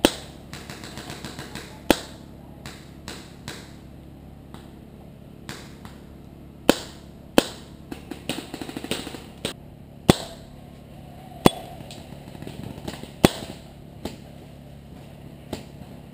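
Paintball markers firing: about seven sharp single pops at irregular intervals, with quicker strings of softer ticks in between.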